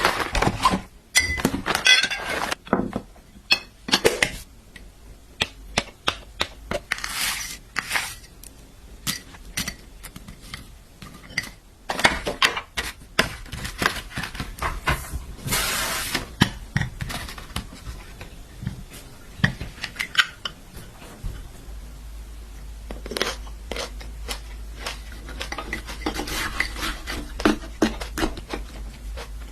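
Dishes and kitchen utensils clinking and knocking during food preparation, with a few short scraping or rustling passages. A low steady hum comes on about two-thirds of the way through.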